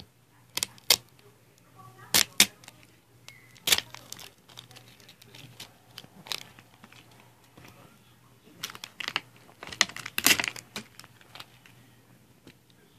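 A small plastic juice bottle handled right at the microphone: irregular sharp clicks and crinkles of the plastic as it is gripped and turned, loudest about two and a half seconds and ten seconds in.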